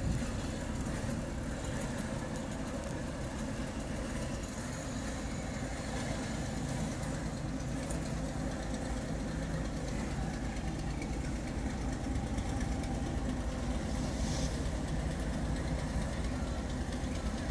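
A boat engine idling, a steady low rumble that holds even throughout.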